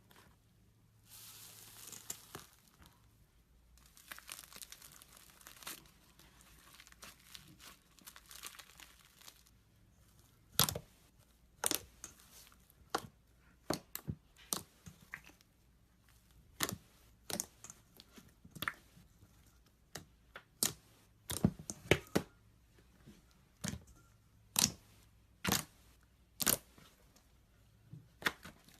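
Slime being worked by hand: a crackly crinkling for the first several seconds, then a string of sharp clicks and pops, about one a second.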